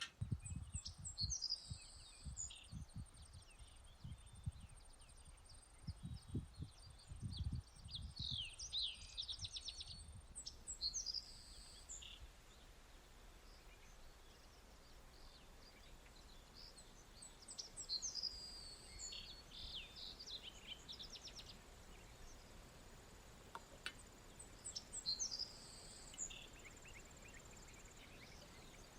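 Birds chirping and trilling on and off, with wind gusting against the microphone in low buffeting thumps through roughly the first ten seconds.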